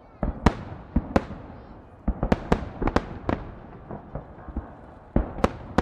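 Salute fireworks shells bursting overhead: a string of sharp bangs at irregular intervals, several coming in quick clusters of two or three.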